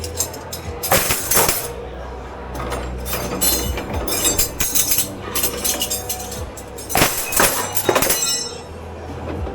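Crockery, glassware and cutlery clinking and knocking together in a commercial kitchen dish pit, in repeated sharp clatters, loudest about a second in and again around seven to eight seconds in. A steady low machine hum and music run underneath.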